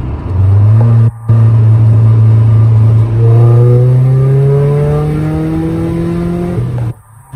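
Nissan D21 Hardbody pickup's engine, with a modified exhaust, heard from inside the cab accelerating hard under heavy throttle. The engine note climbs steadily in pitch for a few seconds, then cuts off suddenly near the end.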